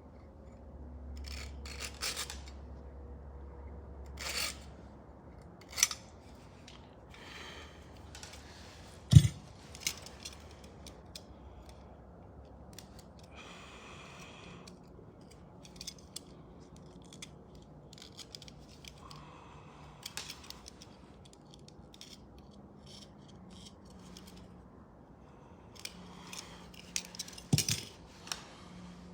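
Small tools and fishing-rod parts being handled on a work surface: scattered clicks, scrapes and light clinks, with a sharp knock about nine seconds in and a quick run of clicks near the end.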